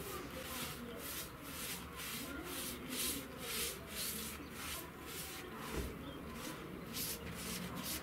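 Paintbrush stroking wood stain onto a wooden window frame: a steady run of short swishes, about two to three strokes a second.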